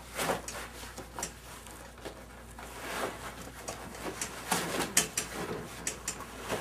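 Fabric seat-back cover being pulled up off the seat: rustling and scraping with scattered clicks and taps.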